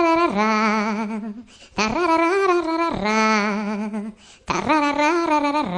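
A funny vocal ringtone: a voice sings wordless, wavering held notes in three phrases with short breaks between them. Each phrase ends on a lower held note.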